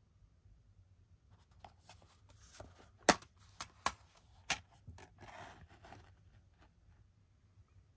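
Plastic DVD case and packaging being handled: a run of light plastic clicks with four sharper ones a little past the middle, then a brief rustle.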